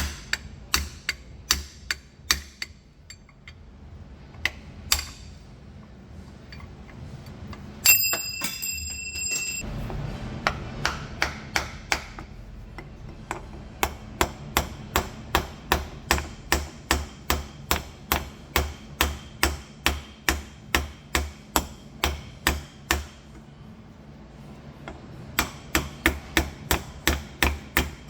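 Hammer tapping on metal in quick, even blows, about two to three a second, with a short break before the blows pick up again near the end. One sharper strike about eight seconds in leaves a high metallic ring lasting over a second.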